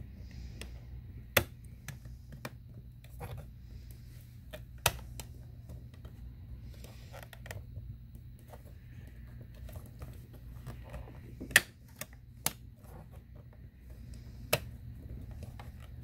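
Irregular small clicks and taps of a perforated metal antenna plate being pressed and shifted against a Mac Mini's aluminium case as it is worked into alignment, with a few sharper, louder clicks spread through. A low steady hum runs underneath.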